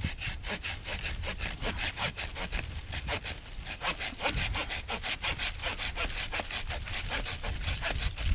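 Handsaw cutting through a fallen oak branch in quick, even back-and-forth strokes, the teeth rasping through the wood.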